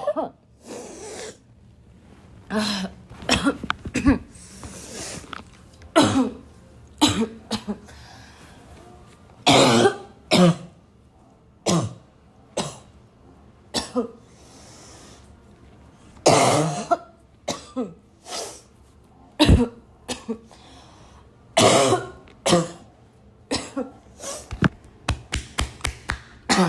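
A person in a loud, barking coughing fit: harsh coughs come singly and in clusters, with drawn breaths between them, and a quick run of short coughs near the end.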